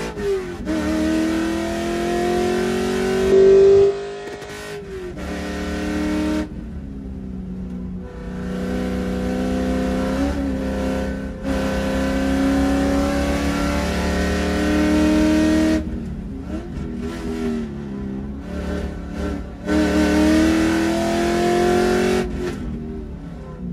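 Trans Am race car engine heard from inside the cockpit under hard acceleration, its pitch climbing through the gears. Three times the revs drop away unevenly as the car slows for corners, then climb again.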